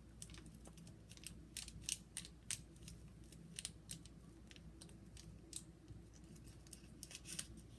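Faint, irregular crisp clicks and snips close to the microphone, from hands handling something out of view, ASMR-style.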